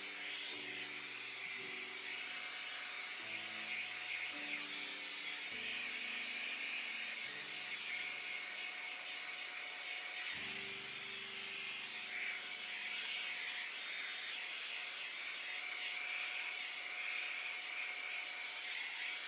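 Small handheld electric mini blower running steadily with a high whirring hiss, blowing wet acrylic paint across a canvas. Soft background music with low held notes plays underneath.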